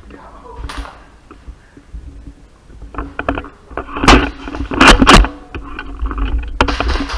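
A run of sharp knocks and clatter, loudest in two clusters about four and five seconds in, over a low rumble of movement.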